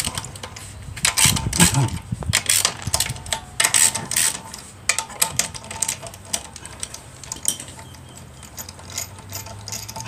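A hand ratchet clicking and metal clinking as the wheel's lug nuts are undone by hand, without power tools. Irregular sharp clicks, busier and louder in the first half.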